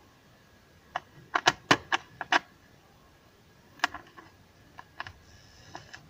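Sharp plastic clicks and clacks as a USB pen drive is pushed into the slot of a small MP3 player module and the module is handled. A quick cluster of clicks comes about a second in, then a few scattered single clicks.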